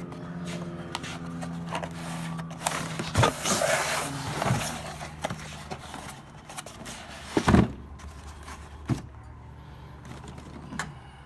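Knocks, clicks and rustling as items are handled and moved, with a loud knock about seven and a half seconds in, over a steady low hum.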